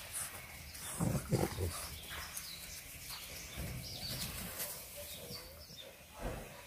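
English bulldog puppies giving short, low grunts and snuffles as they play-wrestle, loudest about a second in and again near the end.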